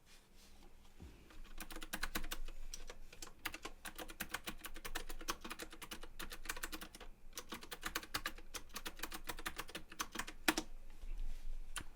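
Typing on a computer keyboard: rapid runs of key clicks with a short break about seven seconds in, stopping shortly before the end.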